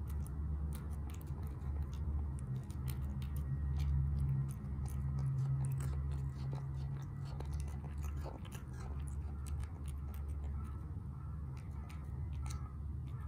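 Munchkin cat crunching and chewing dry kibble from a bowl, with quick irregular crunches close to the microphone. A low steady hum runs underneath.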